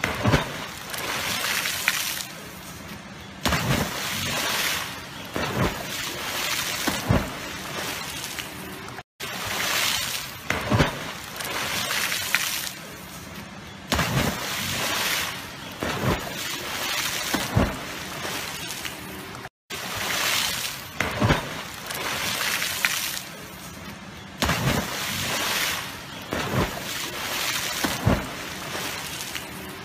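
Dogs diving one after another into a river: repeated splashes as they hit the water, then sloshing and churning water as they swim. The same run of splashes repeats about every ten seconds, three times over.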